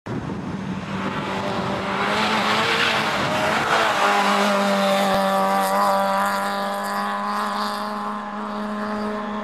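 Fiat Cinquecento rally car at full racing pace through a bend, engine revving hard with a rush of tyre and road noise as it passes about two to four seconds in. It then drives away with the engine note held high and steady.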